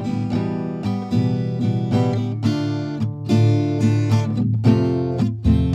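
Background music on acoustic guitar, a steady run of plucked notes and chords.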